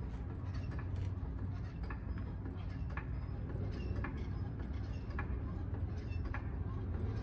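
Hydraulic floor jack being pumped by its long handle to raise a car, giving a click roughly once a second with the strokes, over a steady low rumble.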